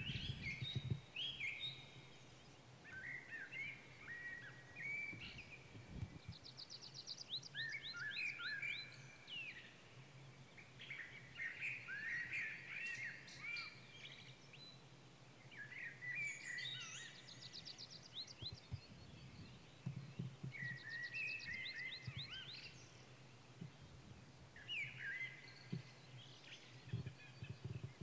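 Songbirds singing in short warbling phrases that come back every few seconds, some holding a fast high trill. Occasional low wind rumble on the microphone.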